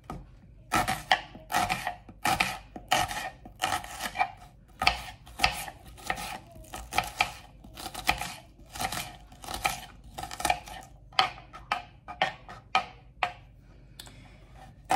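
Kitchen knife dicing an onion on a cutting board: a steady run of chopping strikes, about two or three a second, stopping shortly before the end.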